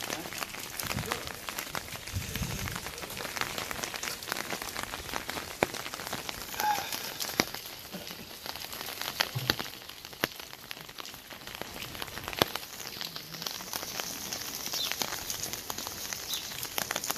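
Rain falling steadily, with many sharp, irregular drop hits close by.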